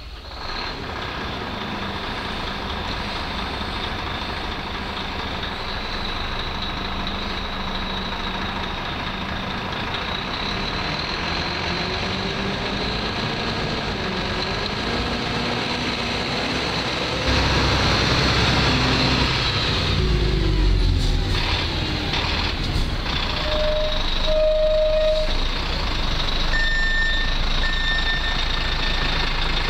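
Diesel engine of a Volvo fire engine running as the truck pulls out and drives off. It gets louder a little past halfway as the truck moves away under power. Short beeping tones sound in the last third.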